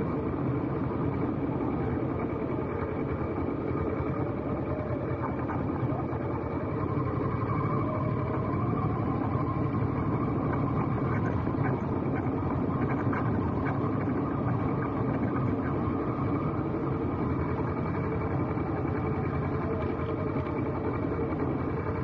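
Motorcycle engine running steadily while riding, a constant drone at an even level.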